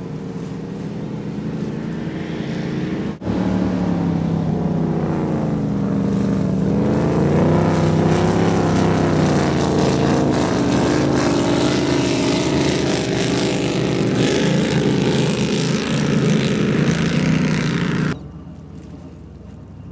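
High-performance offshore powerboat engines running at speed as the boats pass close, a loud, deep engine drone whose pitch wavers and swells. It breaks off briefly about three seconds in and drops to a quieter wash of wind and water near the end.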